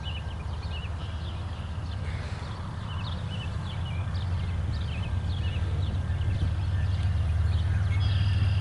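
Diesel freight train approaching: a low engine rumble growing steadily louder, with birds chirping over it.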